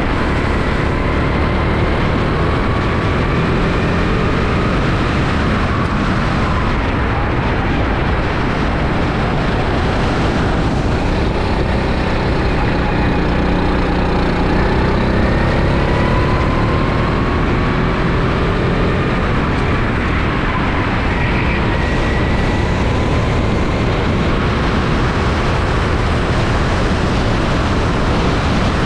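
Rental kart engine heard onboard, its pitch rising and falling as it revs up and down around the track, mostly buried under a loud, steady rush of noise on the camera microphone.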